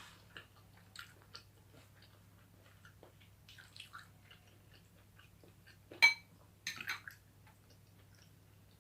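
Close-up eating of cooked chicken bones: quiet chewing with small scattered clicks, a sharp crunch about six seconds in and a short burst of crackling crunches just before seven seconds, over a steady low hum.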